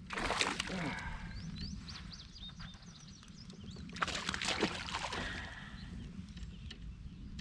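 Water splashing and sloshing beside a kayak as a hooked bass is brought in, in two bursts, one just after the start and one about four seconds in. A bird gives a run of short high chirps between them.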